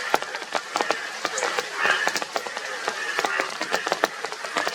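Chorus of Indian bullfrogs calling, overlapping croaks rising every second or so, over a dense patter of sharp clicks.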